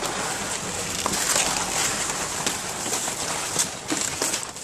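Plastic bag crinkling and rustling steadily as a replica championship belt is handled and drawn out of it, with a few sharper crackles along the way.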